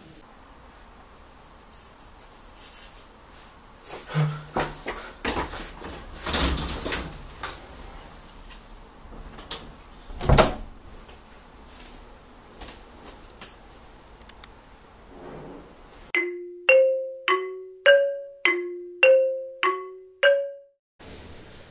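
Scattered knocks and thumps, the loudest a single heavy thump about ten seconds in, followed near the end by a short tune of about eight struck notes on a mallet instrument, alternating low and high.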